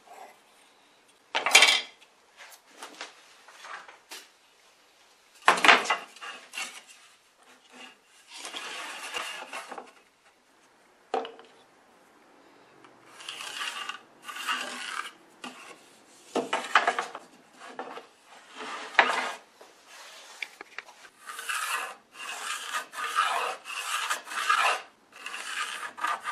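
Pencil scratching on a wooden board in irregular strokes as lines are drawn along a steel square and a long level, with the tools sliding over the wood. A few louder knocks come from the square and level being set down and shifted, and a quick run of strokes comes near the end.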